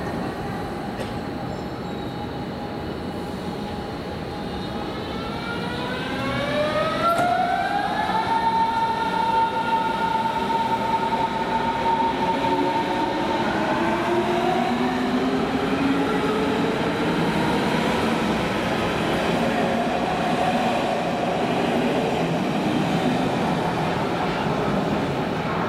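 Berlin S-Bahn class 481 electric train pulling away from the platform: its traction drive gives a rising whine that climbs for about three seconds, then levels off into a steady whine over the rumble of wheels on rail as the train runs out of the station.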